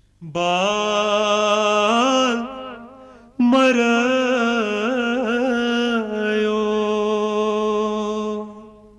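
A solo voice singing a Kashmiri song in two long, drawn-out phrases with wavering, ornamented notes, the second phrase starting about three and a half seconds in.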